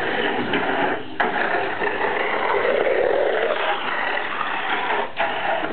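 Tamiya Mini 4WD toy cars running on a plastic multi-lane track: a steady mechanical whirr of small electric motors and gears, broken by two short dips, about a second in and near the end.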